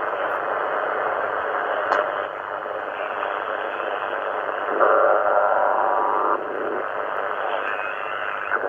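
ATS25X1 shortwave receiver's loudspeaker tuned to the 40-metre amateur band in LSB mode near 7.055 MHz, giving a steady static hiss. A stronger signal breaks through for about a second and a half a little after the middle.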